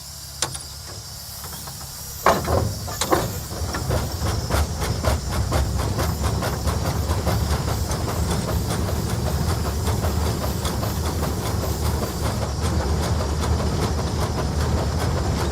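Case 150 hp steam traction engine with a steady hiss of steam and a low rumble. About two seconds in, a few loud exhaust chuffs come as it gets under way. It then settles into a fast, even beat of chuffs and clicks.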